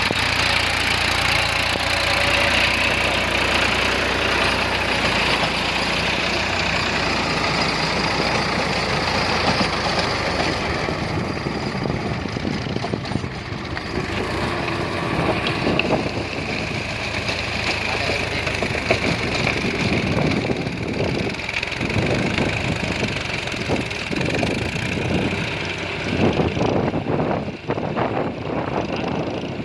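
Massey Ferguson 246 Dyna Track tractor's diesel engine running steadily. About halfway through, uneven knocking and clattering join in.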